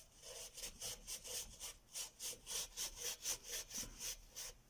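A wet tissue rubbed quickly back and forth over the PC case's surface, about three strokes a second, wiping off the dust.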